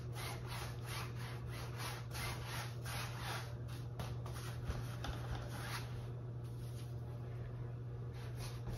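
A large round stipple brush loaded with acrylic paint scrubs across a canvas in quick back-and-forth strokes, about three a second: a dry, scratchy rubbing of bristles on canvas weave. The strokes grow fainter after about six seconds, and a steady low hum runs underneath.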